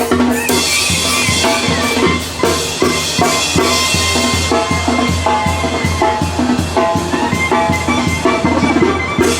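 Loud music with a fast, steady drum beat, short pitched melody notes and a low bass line.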